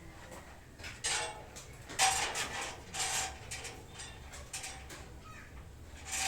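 A few short clattering scrapes and clinks of hard parts being handled, about a second in, around two and three seconds in, and again near the end.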